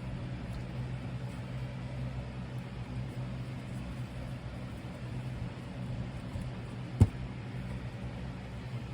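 A steady low hum, with one sharp click about seven seconds in.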